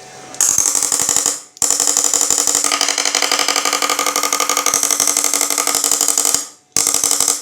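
Homemade IGBT electric fish-shocking inverter firing its output into water, giving a loud, harsh buzz of rapid, even pulses. Its timer and output volume are turned down. The buzz cuts out briefly about a second and a half in and again near the end.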